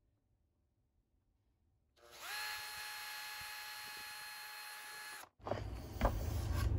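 Cordless drill with a small 5/64-inch bit drilling a pilot hole into thin wood: a steady whine that spins up about two seconds in, holds for about three seconds and stops suddenly. Rustling and a few knocks follow as the drill is lifted away.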